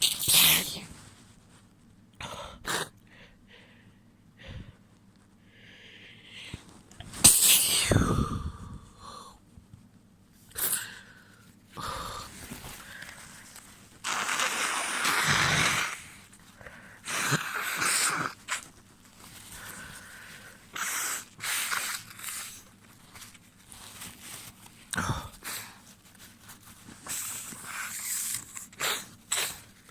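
A person sneezing wet sneezes, the loudest about seven seconds in, then blowing their nose several times in noisy blows, the longest lasting about two seconds.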